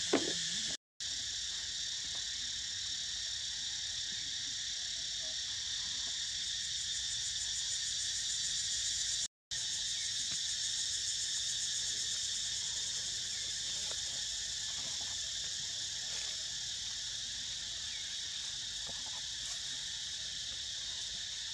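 Steady, continuous chorus of insects shrilling high in the forest, broken twice by a brief total dropout in the sound.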